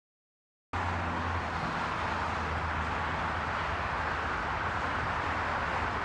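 Dead silence for under a second, then a steady rushing noise starts abruptly, with a low hum beneath it, and runs on unchanged.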